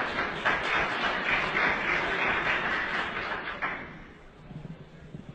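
Audience applauding, which stops fairly abruptly a little after the middle, leaving a faint murmur of voices.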